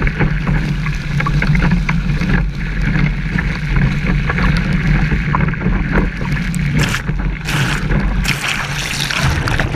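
Wind buffeting a body-mounted action camera's microphone while a kiteboard skims fast over the water, with steady rushing water noise. Spray hits the camera in louder splashes several times from about seven seconds in.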